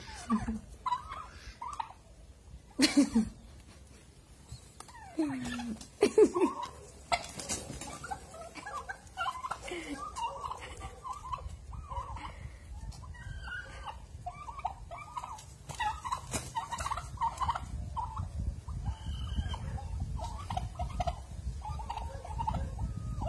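A flock of domestic turkeys calling: many short yelps and peeps, with a few louder, lower calls in the first six seconds.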